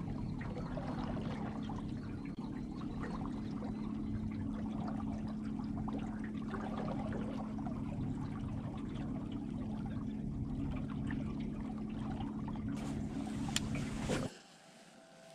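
Water trickling and lapping against a small boat's hull over a steady low hum, with a couple of sharp clicks near the end before the sound drops away abruptly.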